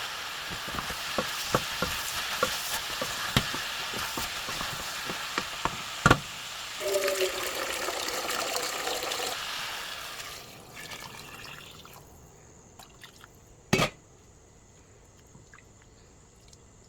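Soup vegetables cooking in a pot: a steady sizzling hiss with scattered clicks of a spoon stirring against the pot, and a sharp knock about six seconds in. The hiss dies away after about ten seconds, and a single loud knock comes near the end.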